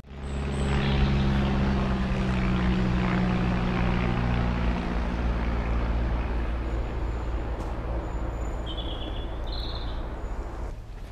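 A low-flying light aircraft passing overhead: a steady engine drone with a low hum, which thins out about halfway through. A bird chirps twice near the end.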